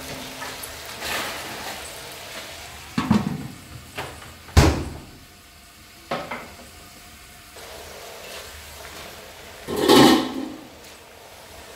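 Stir-frying in a wok: a metal spatula scrapes the pan, then a large aluminium lid knocks down onto the wok about four and a half seconds in, the loudest sound. About ten seconds in the lid comes off and there is a brief burst of sizzling.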